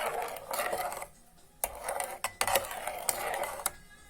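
A spoon stirring sugar into melted butter and honey in a small saucepan, scraping around the pan in two spells with a few sharp clinks against it.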